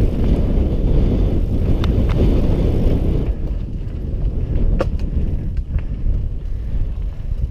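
Mountain bike rolling fast down rocky dirt singletrack, with heavy wind rumble on the microphone and the tyres crunching over dirt and stones. A few sharp clicks and rattles come from stones and the bike. The rumble is loudest for the first three seconds, then eases.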